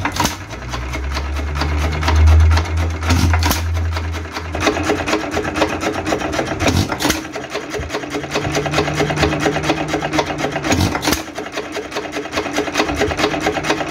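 Associated Chore Boy single-cylinder hit-and-miss engine running warm and steady: a rapid mechanical clatter as it coasts through long miss cycles, with a stronger knock every three to four seconds when it fires.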